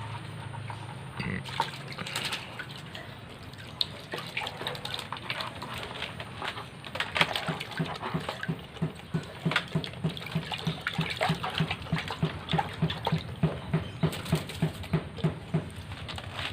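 A small cage bird splashing in its water dish, with scattered short splashes and flicks of water. In the second half a regular low thudding, about two or three beats a second, joins in and is the loudest part.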